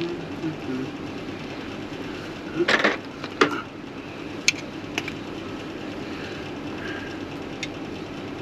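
A few sharp clicks and knocks from hands and tools working on parts. The loudest is a short clatter about three seconds in, followed by single clicks, over a steady background hum.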